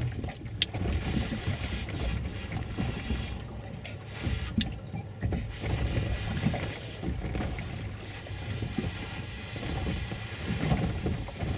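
Wind buffeting the microphone on an open boat: an uneven low rumble with a shifting hiss above it, and one sharp click about half a second in.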